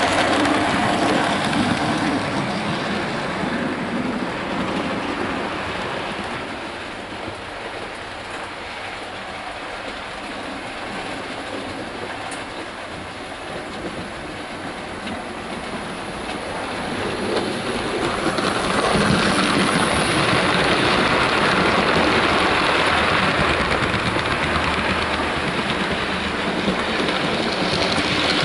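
Bachmann OO-gauge model trains running on the layout track, the wheels rolling and rattling over the rails. It is loud as a rake of coaches passes close, dies down for a while, then builds again about two-thirds of the way through as the double-headed Peppercorn A1 pacific models approach.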